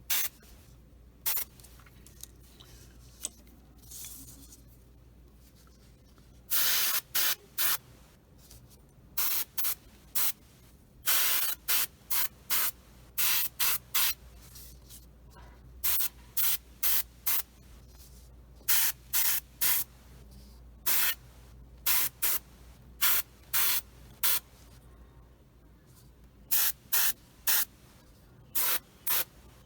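Airbrush spraying paint in dozens of short hissing bursts, each well under a second, with a couple of longer passes and brief pauses between.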